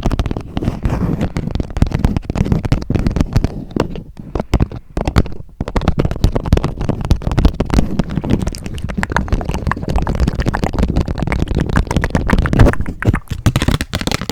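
Fast tapping on a Hello Kitty Uno card set close to the microphone: a dense run of loud clicks and knocks, easing off briefly about four to five seconds in.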